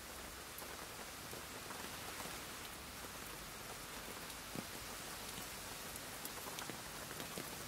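Steady rainfall: an even hiss of rain with scattered individual drops landing, one a little louder about four and a half seconds in.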